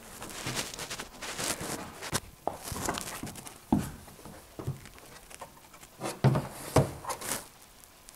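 A climber moving up an indoor bouldering wall: scattered, irregular scuffs, taps and knocks of hands and climbing shoes on the holds and volumes.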